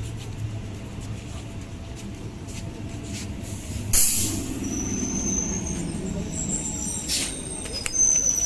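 BEML electric multiple-unit train: a steady low rumble, then a sudden sharp hiss of air about four seconds in, followed by a low hum falling in pitch and high-pitched squealing, as the train brakes.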